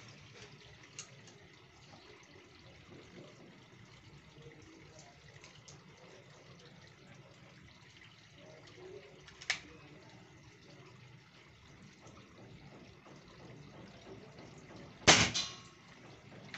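A PCP air rifle, a Predator Tactical with a 500cc air bottle, fires one sharp shot near the end, a full-power shot of about 940 fps through a chronograph. A single sharp click comes about five seconds earlier.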